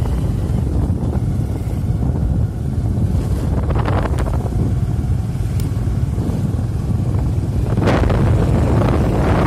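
Steady low rumble of wind buffeting the microphone while moving along a dirt forest track, with a few brief crackles about four seconds in and near the end.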